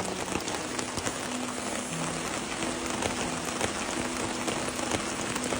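Steady rain falling, with many separate drops ticking on a nearby surface over a continuous hiss.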